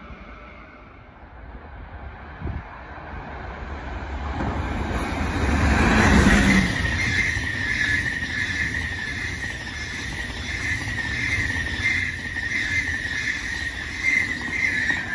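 SBB electric passenger train passing close by, its wheels rolling over the rails and growing louder as it draws near. About six seconds in a steady high whine sets in and holds while the coaches go by.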